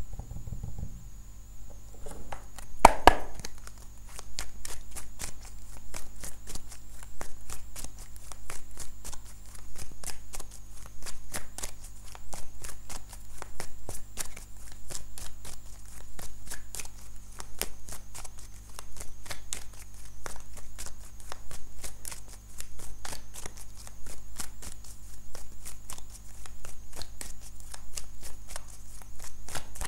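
A deck of oracle cards being shuffled by hand: a steady run of quick card slaps and clicks, several a second. There is one louder sound about three seconds in.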